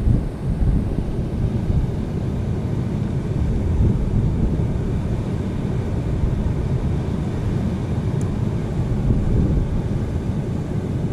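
Wind buffeting the microphone: a steady rumble, deepest at the low end, that swells and eases irregularly.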